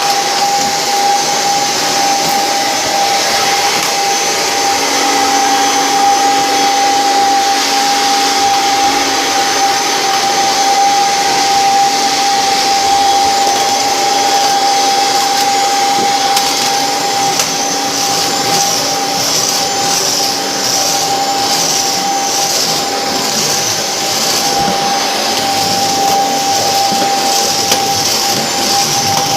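Vacuum cleaner running steadily, a constant rushing airflow with a steady whining motor tone.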